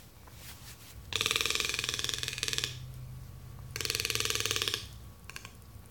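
Toco toucan giving two rattling, croaking calls, each made of fast pulses: the first about a second and a half long, the second about a second.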